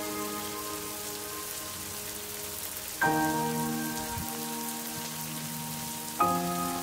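Heavy rain falling steadily, under soft background music: sustained chords, a new one struck about every three seconds, about three seconds in and again near the end.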